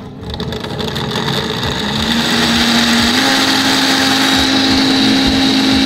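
KitchenAid Artisan countertop blender starting up and pureeing a green mixture, its motor tone stepping up in pitch twice over the first three seconds, then running steadily.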